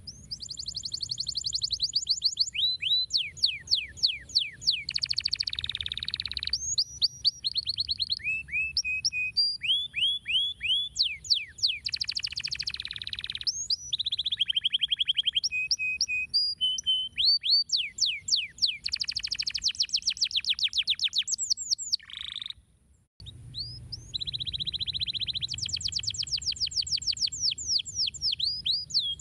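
Domestic canary singing a long, continuous song of rapid trills and runs of quick, falling whistled notes, broken once by a brief pause about two-thirds of the way through.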